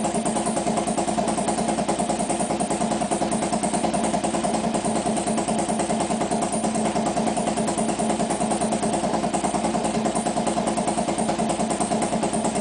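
Harley-Davidson V-twin engine idling steadily with an even, pulsing beat while it warms up after a hard start.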